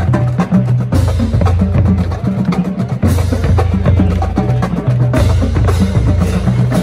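Marching band drumline playing a fast cadence: snare, tenor and bass drums with crashing cymbals, and low held notes underneath.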